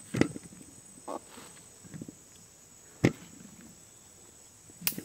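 Three sharp knocks, near the start, about three seconds in and near the end, over a faint steady high-pitched whine.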